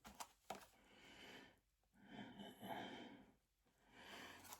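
Near silence with a few faint breaths, and a couple of tiny clicks in the first half second.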